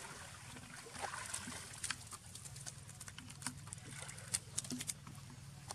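Light splashing and water dripping and pattering off a wet macaque onto stone as it climbs out of a pool, heard as many small scattered ticks and drips.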